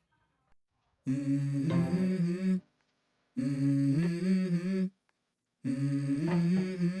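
A wordless voice humming or chanting three short phrases on a few held, stepping notes, each about a second and a half long with short pauses between. It is the opening of the background song that follows.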